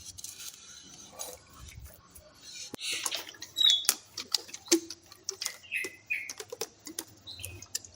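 Plastic toy water gun being handled and filled: scattered sharp plastic clicks and knocks, with bursts of water splashing and gurgling, some of them squeaky and chirp-like.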